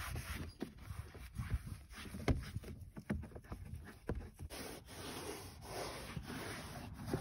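A wet wipe rubbing over a car's plastic interior door trim and door sill, with irregular soft knocks and bumps from handling, most frequent in the first half.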